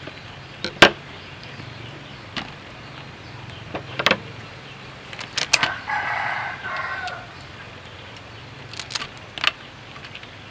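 A series of sharp knocks, the loudest about a second in, with a chicken calling once for about a second around the middle.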